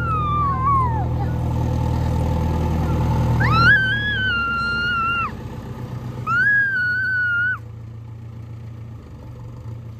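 A cat meowing: a falling call in the first second, then two longer calls that rise and hold, about three and a half and six seconds in. Under them a steady low engine hum that drops away sharply about four seconds in.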